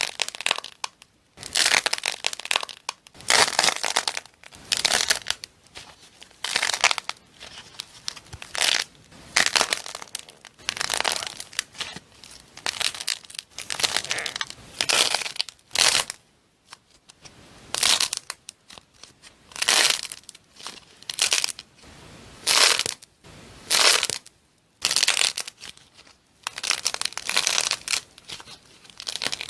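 Slime being squeezed and pressed by hand, making repeated short noisy bursts, roughly one a second, with brief pauses between.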